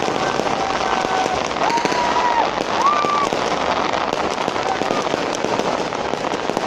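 Fireworks crackling: a dense, unbroken run of rapid small pops.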